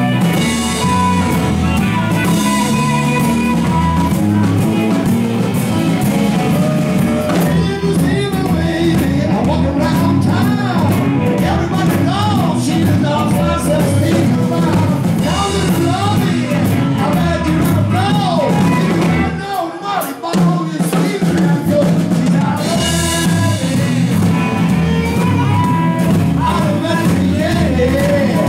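Live blues band playing: amplified harmonica wailing with bent notes over electric guitar, bass guitar and drums. The bass and drums drop out briefly about twenty seconds in, then the band comes back in.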